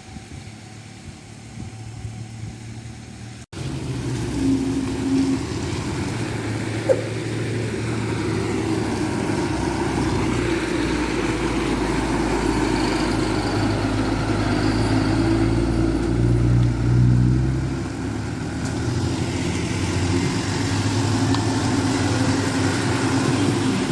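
Vehicle engine running steadily, gradually growing louder until about seventeen seconds in, then easing slightly. An abrupt cut about three and a half seconds in, where the sound changes.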